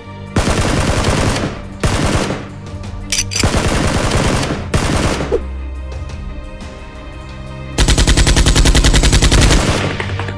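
Automatic gunfire sound effects standing in for Nerf blaster fire, over background music. Three bursts of about a second each come in the first half, and a longer, faster run of evenly spaced shots comes near the end.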